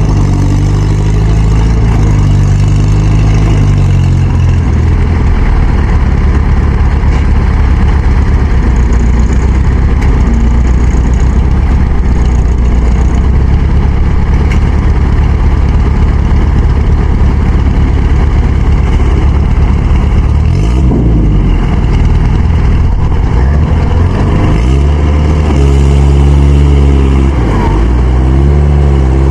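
Heavy farm-machinery engines working hard to drag a mud-stuck rice harvester free, running loud and steady, with the revs swinging up and down about twenty seconds in and again near the end.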